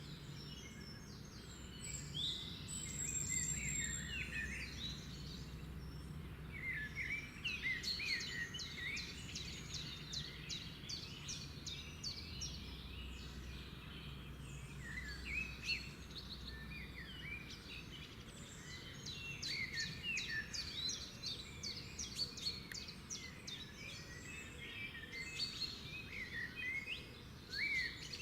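Several birds singing together, a dense run of chirps and short rising and falling whistles, over a steady low rumble.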